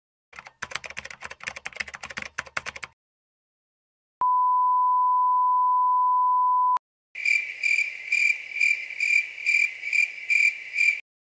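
Three stock sound effects in turn: a quick run of irregular sharp clicks, then a steady one-pitch censor beep lasting about two and a half seconds, then crickets chirping in a regular pulse of about three chirps a second.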